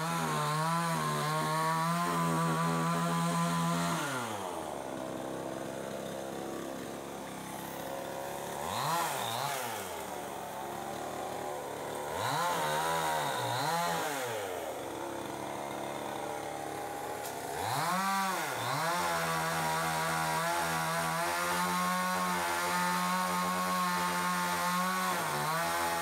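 Chainsaw engine revved to full speed and held for about four seconds, then dropping to a low idle. It is blipped up once, then twice in quick succession, idles again, and is held at full revs for about eight seconds before easing off at the end.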